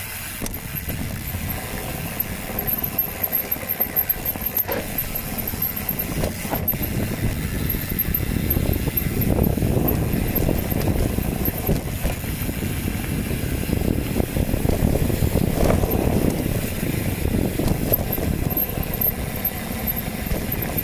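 Mountain bike rolling down a trail: steady tyre rumble and rattle with wind on the microphone, growing louder from about eight seconds in.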